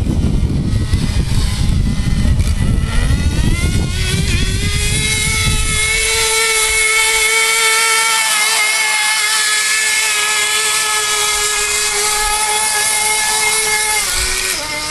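Small nitro glow engine of a Kyosho Blizzard RC snowcat, untuned on its first run. A rough low noise fills the first four seconds or so, then the engine settles into a steady high-pitched whine, dipping briefly near the end.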